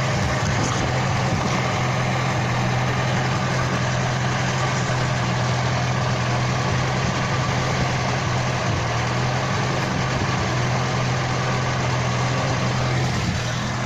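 Car running, heard from inside: a steady low engine hum over even road and running noise, easing slightly near the end.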